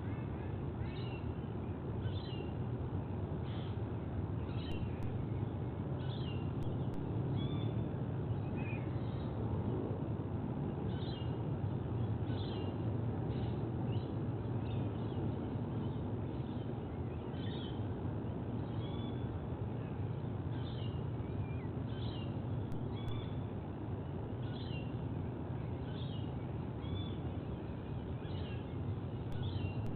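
Short high-pitched bird chirps, repeated roughly once a second, over a steady low rumble of background noise.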